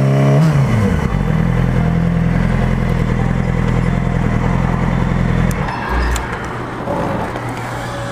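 2007 Yamaha R6's inline-four through a Leo Vince aftermarket exhaust: a rev falling back to idle in the first second, a steady idle, then the engine cutting out about five and a half seconds in, followed by a thump and light clatter.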